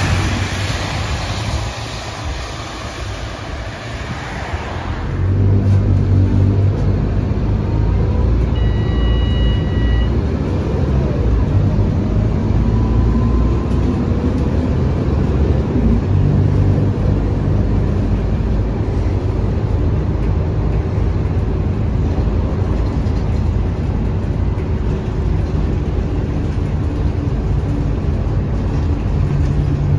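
Scania DC9 8.9-litre five-cylinder diesel engine of a Scania K230UB bus running, heard from inside the passenger cabin, with a strong steady low drone. A loud hiss fills the first few seconds, and a short high beeping tone sounds about nine seconds in.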